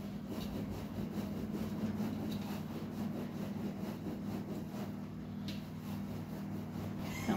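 Hands kneading and rubbing çiğ köfte mixture of bulgur and pepper paste against the dimpled bottom of a large steel tray, over a steady low hum.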